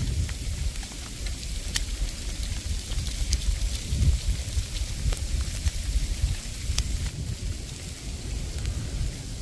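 Wind buffeting the microphone in a snowstorm: an uneven low rumble under a steady hiss, with a few sharp ticks.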